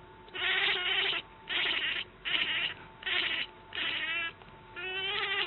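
A cat meowing repeatedly, about six meows in quick succession, each under a second long.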